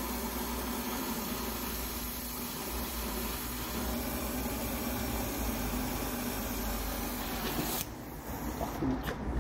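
Gas brazing torch flame hissing steadily while brass is brazed with bronze filler. The hiss cuts off abruptly about eight seconds in as the torch is shut off.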